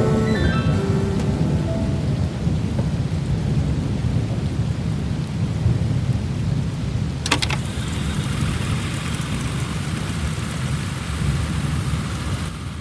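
Rain and rumbling thunder, a thunderstorm effect at the end of a song, as the last musical notes fade out in the first two seconds. A sharp crack of thunder comes about seven seconds in, after which the rain hiss is brighter, and it all fades at the end.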